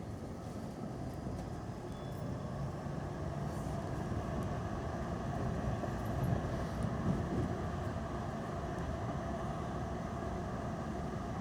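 Amsterdam tram heard from inside the passenger cabin, running with a steady rumble and a faint steady whine. It grows a little louder over the first half.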